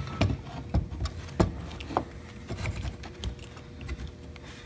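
A flathead screwdriver prying and scraping between a rubber radiator hose and the thermostat housing, with irregular clicks and knocks, the sharpest about one and a half seconds in, as it works to break a hose seal stuck on for about 15 years.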